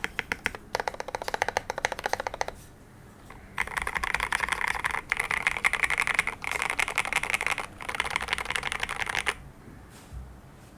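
Typing on a custom TOFU65 mechanical keyboard with lubed Alpaca v2 linear switches and PBT XDA keycaps on a polycarbonate plate: quick runs of key strokes, a brief pause about 2.5 s in, then a denser, near-continuous clatter in four stretches that stops about 9 s in.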